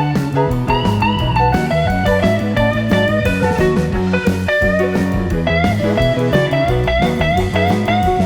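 Background music: a blues-style guitar piece with bending notes over a steady bass line.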